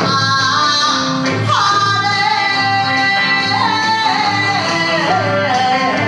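A woman singing Kawachi ondo into a microphone, holding long, wavering notes that step down in pitch, over band accompaniment with a steady beat.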